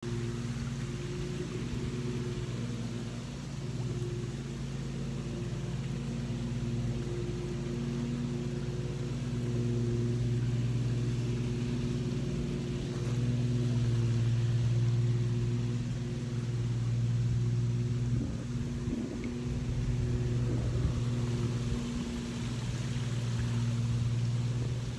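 A steady, low motor hum at a constant pitch, swelling and fading in loudness without changing pitch.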